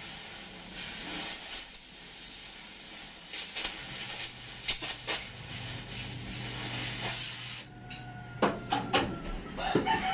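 Oxy-fuel cutting torch hissing steadily as it cuts through steel floor framing, with a few sharp pops. About eight seconds in the hiss stops and a few knocks follow.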